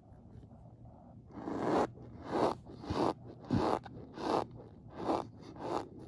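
Cornstarch being pressed and scraped with a large spoon, giving its dry squeaky crunch in a string of about eight short strokes, roughly one every two-thirds of a second. The strokes start after a quiet first second or so.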